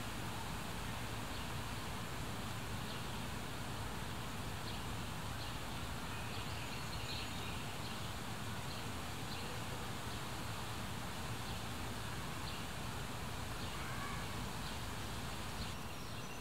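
Outdoor ambience: a steady background hiss and low hum, with faint, short bird chirps scattered through it.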